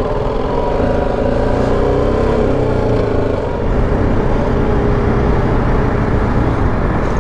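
Riding noise of a BMW G310 GS single-cylinder motorcycle: the engine running steadily under way, mixed with wind rush and surrounding city traffic.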